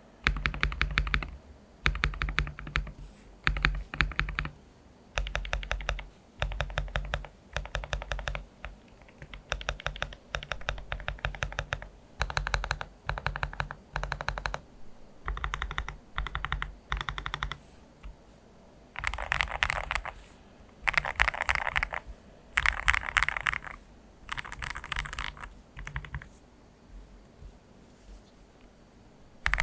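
Tape-modded mechanical keyboard with lubed Gateron Pro Milky Yellow linear switches, typed on in bursts of rapid keystrokes about a second long with short pauses between. Past the middle the bursts turn fuller and denser.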